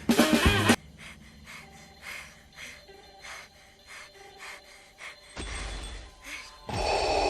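Swing music with drums stops abruptly under a second in. Faint soft sounds follow, repeating about twice a second. Near the end comes a louder rushing noise and then a loud burst with held tones.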